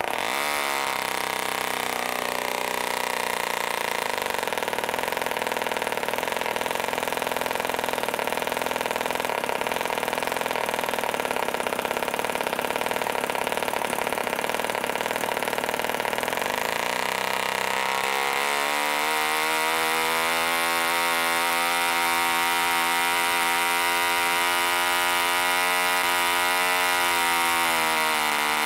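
1945 Rocket Victor .453 cu in (7.37 cc) two-stroke spark-ignition model engine swinging a 13x6 wooden propeller, catching at once when started and running steadily. About two-thirds of the way in its speed rises to a faster steady run, with the needle valve opened a little, then dips briefly near the end and picks up again.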